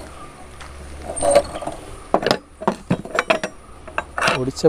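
Ribbed steel rebar clinking and knocking against the steel pins of a stirrup-bending jig while being bent by hand. A few sharp metal knocks come in the second half.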